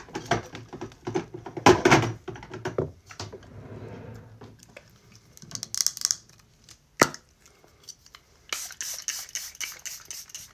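Charlotte Tilbury Airbrush Flawless setting spray pumped in a quick run of short mist sprays near the end. Before that come clicks and rustling as the bottle is handled.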